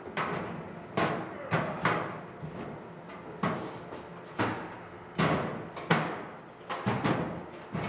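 Metal hand tools clanking against a steel tool chest: a series of sharp knocks, about one or two a second at uneven spacing, each ringing briefly.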